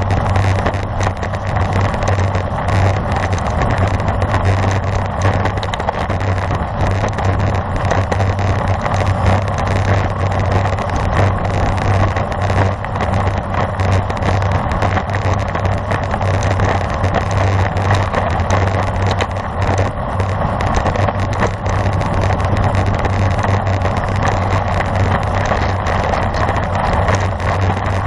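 Steady wind noise buffeting the microphone of a camera carried on a bicycle riding at road-race speed, mixed with tyre and road rumble.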